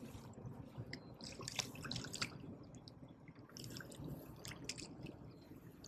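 Faint water dripping and small splashes, in short irregular clusters about a second in and again near the end.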